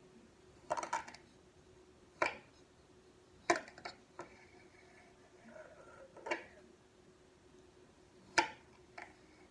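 Small hard objects knocking and clicking on a tabletop, about six sharp separate knocks spread over several seconds, with faint scraping between two of them.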